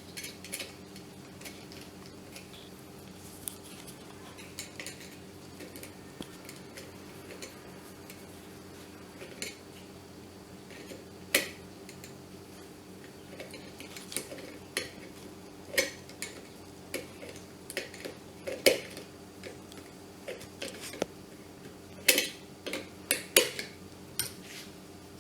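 Scattered small metallic clicks and clinks of hand tools on an electric kettle's metal parts as a nut is fitted onto the earth-wire terminal. The loudest clinks come about halfway through and in a cluster near the end, over a faint steady hum.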